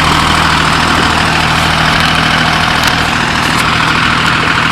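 Engine of a track-side brush-clearing machine running steadily at a constant speed, with a low hum under a broad mechanical noise.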